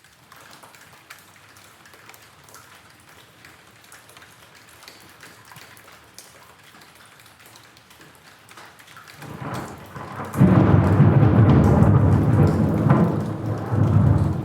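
Steady rain hissing, with scattered drop ticks. About nine seconds in, a thunder roll builds and becomes loud a second later, rumbling on in swells.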